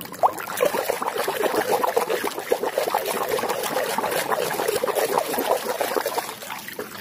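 Water sloshing and splashing in a tub as a hand swishes and scrubs a muddy toy under the surface: a steady, irregular run of small splashes and trickles.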